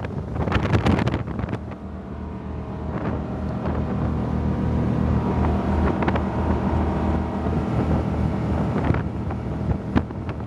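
Fountain Lightning powerboat's inboard engines running hard as the boat goes at speed. Wind buffets the microphone for the first second or so.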